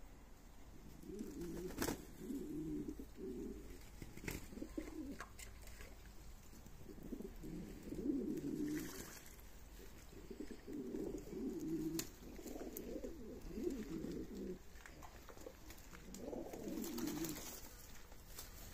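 Domestic pigeons cooing in repeated low, warbling bouts of a second or two each, with a few short clicks in between.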